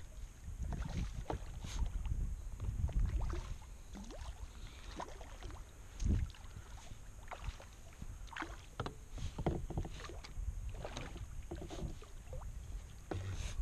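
Water splashing and knocking around a plastic kayak as a hooked redfish thrashes at the surface, with irregular small splashes and clicks and a heavier thump about halfway through. Low rumbles on the microphone come and go, strongest near the start.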